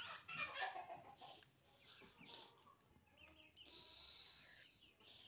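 Faint bird chirping: short high chirps and a brief steadier high call, with a few light clicks.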